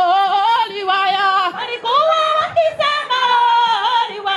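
A group of women singing together, with a brief break about one and a half seconds in.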